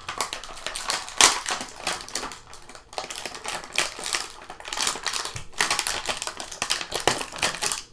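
An action figure's plastic and cardboard packaging being worked open by hand: an irregular run of clicks, crackles and crinkles, with a sharp crack about a second in.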